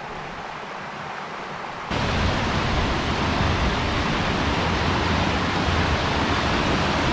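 Waterfall water rushing and crashing in a steady roar of noise, which jumps suddenly louder and deeper about two seconds in.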